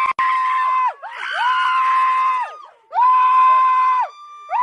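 A person screaming in fright: repeated long, high-pitched screams, each held at a steady pitch for about a second with short breaks between.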